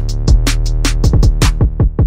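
Intro music: a drum-machine beat with deep bass-drum hits that drop in pitch and quick, sharp hi-hat strokes.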